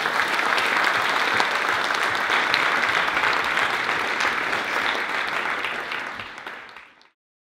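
Audience applauding, a dense even clatter of many hands clapping that tapers off and stops abruptly near the end.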